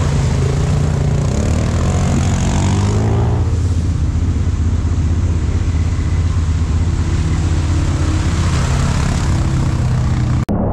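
ATV engine running through a river crossing, its revs rising about two to three seconds in, over a hiss of splashing water. The sound cuts out for a moment near the end.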